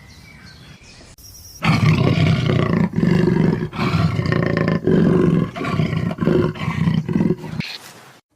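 A big cat roaring loudly in a series of deep, drawn-out calls, starting about a second and a half in and stopping abruptly near the end.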